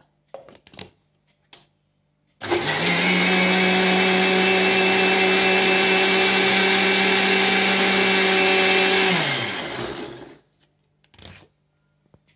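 Mixer grinder motor starting abruptly and running at a steady pitch for about seven seconds, its steel jar churning milk cream with ice water into butter. It then switches off and winds down with falling pitch. A few light clicks come before it and a single knock after.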